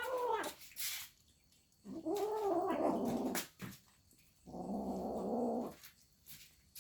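Domestic cat yowling while eating: three drawn-out, wavering calls, with a short one at the start, a longer one about two seconds in, and a lower, rougher one near the five-second mark.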